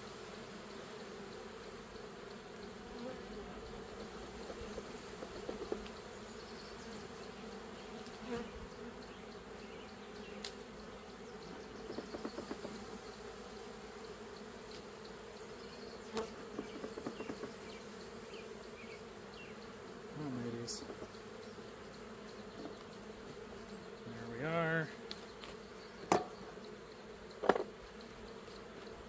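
Honeybees buzzing steadily around an opened hive. About three-quarters through, a louder wavering buzz passes close once, and near the end there are two sharp knocks.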